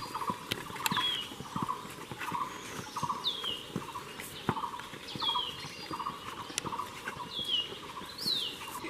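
Footsteps climbing stone stairs at a steady walking pace, about two steps a second. A short, high, falling chirp repeats roughly once a second over them.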